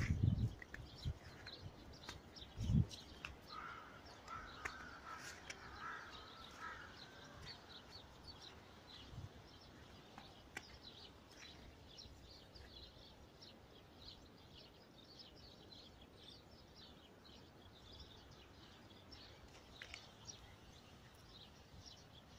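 Outdoor ambience with many small birds chirping throughout, and a flurry of louder calls from about four to seven seconds in. There are two low thumps in the first three seconds.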